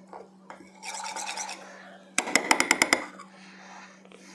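A metal spoon scrapes round a small bowl, stirring parrot hand-feeding formula mixed from powder and warm water to a thin consistency. About two seconds in comes a quick run of clinks, under a second long, as the spoon strikes the bowl.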